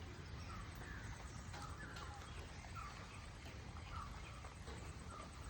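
Steady rain patter, with a bird giving short falling calls repeated every second or so.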